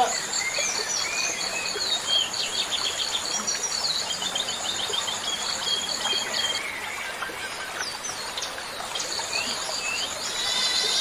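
Small birds chirping with short, varied calls over high, steady pulsed trills that stop for a couple of seconds in the middle and then resume, with a constant hiss underneath.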